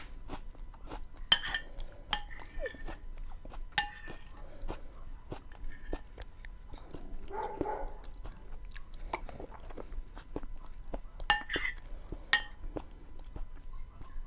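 Close-miked chewing of a dish of beans with onion and tomato: a dense run of wet mouth sounds and short clicks, with a few sharper, louder clicks.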